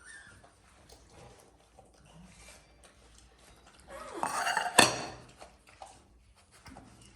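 A raccoon working at a pan to open it: light scrapes and clicks, then about four seconds in a clattering rattle with one sharp clank, the loudest sound.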